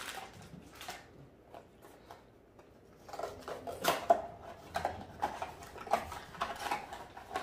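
Small cardboard Funko Mystery Minis blind box being opened by hand: faint taps at first, then from about three seconds in a busy run of crackles, clicks and rustles as the box is torn open and handled.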